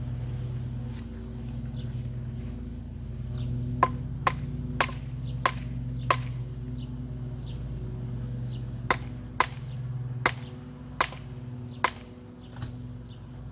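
Ten sharp strikes of a tool on wood, in two runs of five about half a second apart, over a steady low hum.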